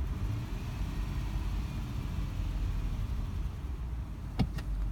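Lexus LX470's 4.7-litre V8 idling steadily in park, with the engine ticking noise that the owner is checking. A couple of sharp clicks come near the end.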